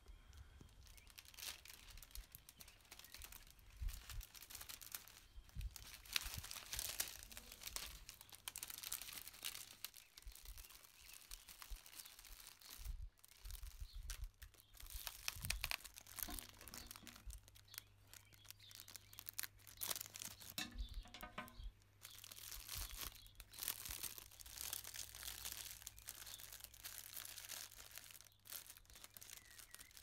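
Clear cellophane gift wrap crinkling in irregular bursts as it is gathered and folded around a fruit basket, with sticky tape pulled off a roll a little past the middle.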